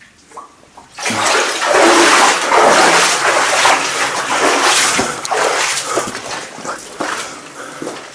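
Someone running: hurried footsteps with splashing and rustle, starting loud about a second in.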